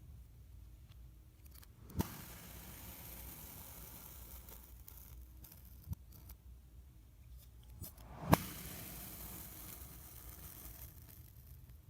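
Knife cutting kinetic sand: twice a sharp tap as the blade meets the sand, each followed by a couple of seconds of soft, grainy crunching as it slices through, with a lighter tap in between.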